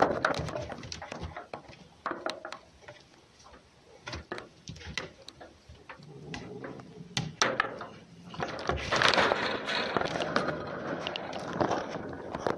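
A cat and a fox scuffling in play on a sheet-metal-topped wooden box: paws and claws click and scrabble on the metal. About six seconds in comes a low, drawn-out cat growl, and from about nine seconds the scuffling gets louder.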